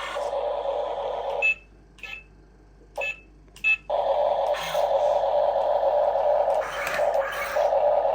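Small electric motors and gearing of an RC model machine whirring, stopping for about two seconds with a few short clicks, then running again with brief dips.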